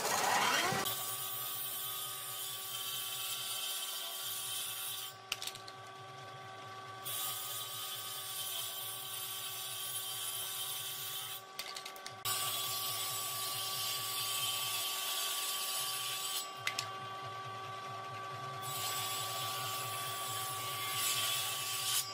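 Table saw running with a steady whine while ripping thin strips of wood. The harsher cutting noise comes and goes over several passes.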